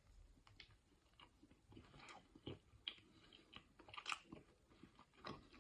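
Faint chewing of a breaded fried chicken piece, with irregular soft crunches from its crispy coating.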